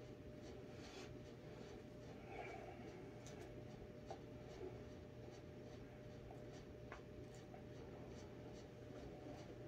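Near silence: faint room tone with a steady low hum and light scratchy ticks and rustles scattered throughout.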